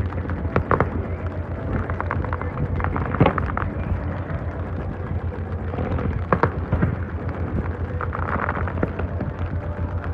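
Fireworks bursting: sharp bangs a few seconds apart, the loudest about three seconds in and again near the middle, over a steady low rumble.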